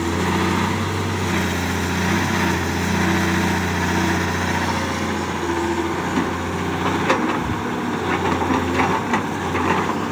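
Caterpillar hydraulic excavator's diesel engine running steadily under load, with a shifting hum as the hydraulics swing and raise the loaded bucket. In the second half come scattered knocks and clatter as soil is tipped from the bucket into the dump truck's steel bed.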